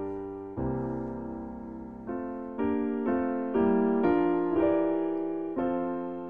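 Background piano music: slow chords struck one after another, each left to fade before the next.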